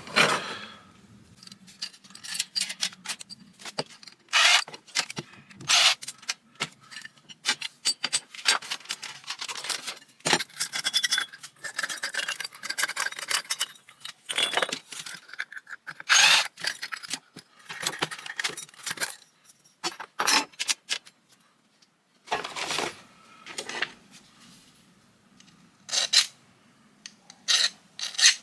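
Ceiling fan being taken apart with hand tools: irregular metallic clicks and clinks of metal parts and tools, mixed with scraping and rasping.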